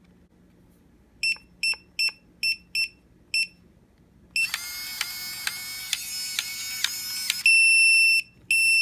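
Electronic keypad deadbolt's buzzer: six short high beeps as keys are pressed, then a rapid, dense alarm tone for about three seconds, then long loud beeps repeating about once a second. The lock has gone into an unexpected alarm.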